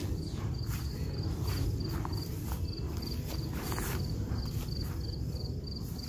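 Footsteps swishing through tall grass about twice a second, over an insect chirping steadily about three times a second and wind rumbling on the microphone.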